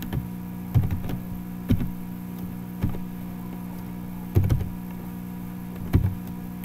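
Slow, uneven keystrokes on a computer keyboard, about five dull taps a second or more apart, over a steady low electrical hum.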